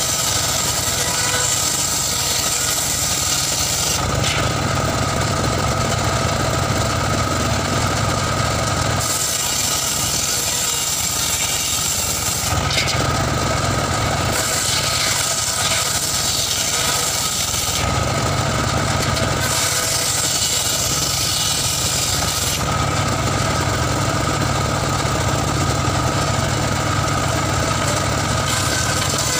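Homemade circular saw bench ripping wooden slabs: the blade's high cutting hiss comes and goes in about five passes of a few seconds each, while the machine keeps running with a low hum between cuts.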